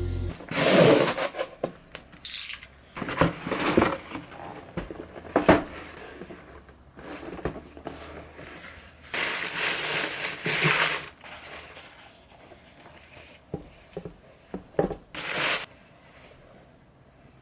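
Packaging being handled and opened: irregular crinkling, rustling and tearing in several bursts, with a few light knocks in between.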